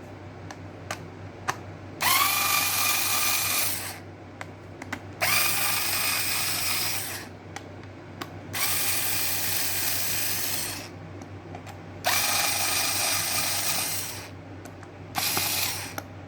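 Electric screwdriver motor running in four bursts of about two seconds and a short fifth one, each starting with a quick rise in pitch and then holding steady, with small clicks between bursts as screws are backed out to open the kettle base.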